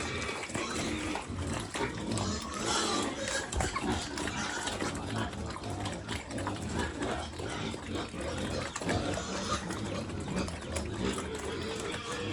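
Pigs grunting while they eat a feed of vegetables and rice, with a continual clatter of short chomping clicks.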